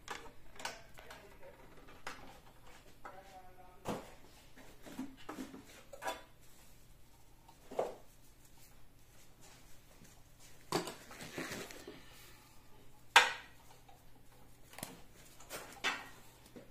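Hard objects being handled and set down on a work surface: scattered clicks and knocks, the sharpest about thirteen seconds in.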